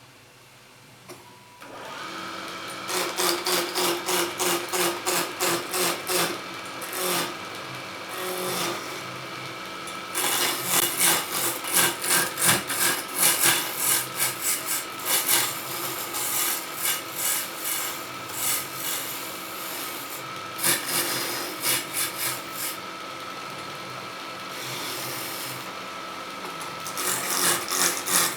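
Wood lathe running, with a turning chisel cutting and scraping the spinning wood in repeated strokes. The sound comes in about two seconds in, after a near-quiet start.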